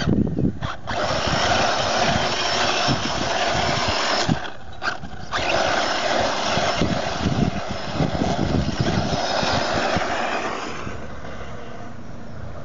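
Brushless electric RC buggy (HPI Trophy Buggy Flux on a 3S LiPo) under hard throttle: the motor whines and the spinning tyres scrub and spray dirt. The throttle drops off briefly about half a second in and again around five seconds, and the sound gets quieter after about eleven seconds as the buggy drives away.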